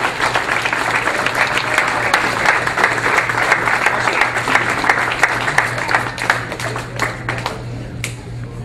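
Small crowd clapping and applauding, thinning out to a few scattered claps near the end, over a steady low hum.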